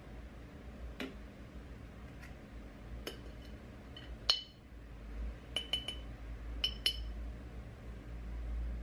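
Metal coffee spoon clinking against a glass coffee jar and a steel portafilter while ground coffee is scooped out: scattered short, ringing clinks, the loudest about four seconds in and a quick run of them around six to seven seconds.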